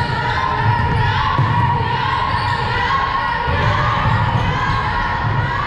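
Basketball game noise in a gym: many voices shouting and calling out over repeated low thumps of a basketball being dribbled on the court.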